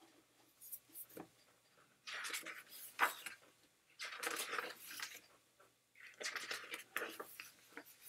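Pages of a hardcover picture book being opened and turned by hand: three short spells of paper rustling and sliding, with a sharp tap about three seconds in.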